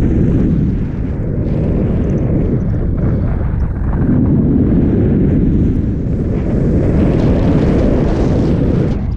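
Loud wind buffeting the camera microphone as a paraglider glides in to land, a deep rushing that swells and eases a few times.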